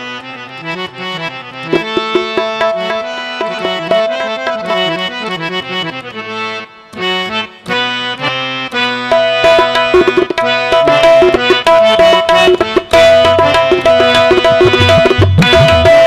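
Harmoniums playing the instrumental opening of a qawwali: sustained reed chords under a moving melody, then a long held high note. Hand drums join about ten seconds in and grow louder, with deep strokes near the end.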